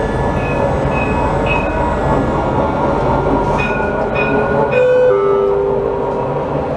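Dubai Tram running at low speed, heard from inside the driver's cab: steady rolling and motor noise. Over it come short high beeps, three in the first two seconds and three more around the middle, followed by a falling two-note tone.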